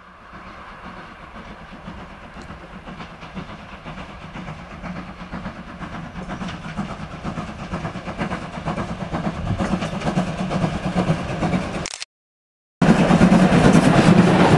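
Steam locomotive hauling a train of passenger coaches approaching, its running sound growing steadily louder. After a brief dropout about twelve seconds in, it passes close by, much louder.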